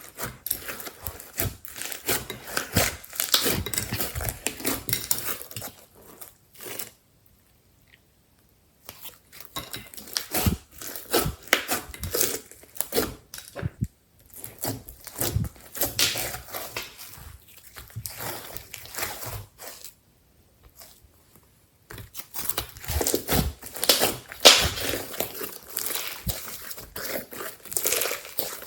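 Hands squishing and stretching slime, giving dense runs of crackling, crinkly pops, with two short pauses.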